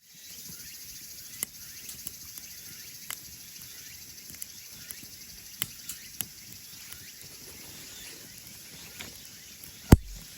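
Wood fire crackling in a small camping wood stove: a steady hiss broken by scattered sharp pops and snaps, with one loud snap near the end.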